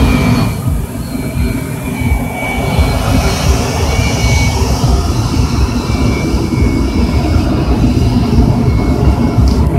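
Twin jet engines of a Sukhoi Su-30 on its landing rollout, drag chute deployed: a loud, steady rumble with a thin, steady whine over it.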